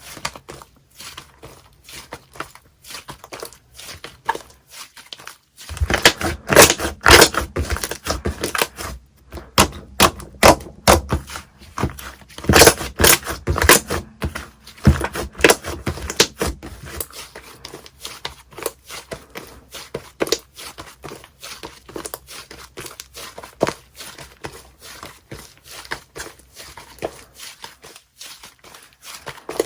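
Slime being squeezed and pressed by hand, a dense run of small sticky pops and clicks, louder and fuller from about six to seventeen seconds in.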